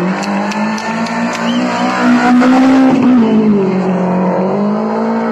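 Rally car engine running hard as the car approaches at speed. Its pitch climbs to a peak about two and a half seconds in, where it is loudest, then falls.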